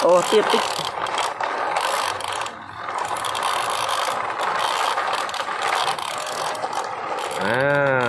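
Plastic toy dump trucks dragged in a line over stony dirt, their wheels and bodies rattling and grinding steadily. Near the end a voice calls out, its pitch rising and then falling.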